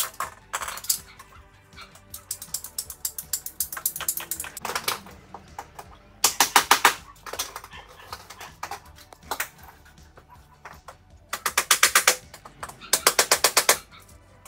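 Ratcheting PVC pipe cutter clicking in quick trains of rapid clicks as it is squeezed through PVC pipe. There are several bursts of about a second each, the loudest three in the second half.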